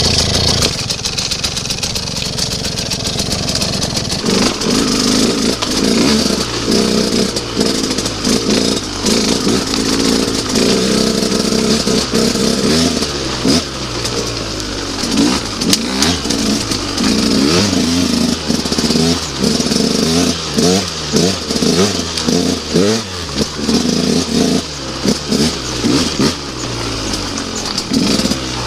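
Enduro dirt bike engine, steadier for the first few seconds, then revving up and down over and over as it is ridden along a rough trail.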